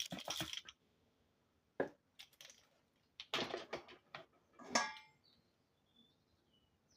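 Metal whisk clinking and scraping against a mixing bowl in short, irregular bursts as eggs, sugar and vanilla are whisked together, one clink near the middle ringing briefly.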